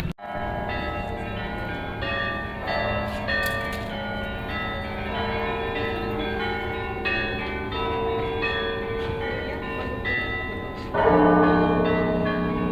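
Orthodox church bells rung in a peal (zvon): many smaller bells struck in quick succession, each note ringing on. About 11 seconds in, deeper, heavier bells come in louder.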